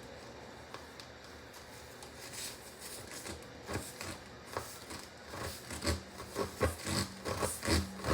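Tire plug insertion tool being pushed and worked into a nail hole in a car tire's tread, with repeated short scraping, rubbing strokes. The strokes grow louder and quicker over the last few seconds.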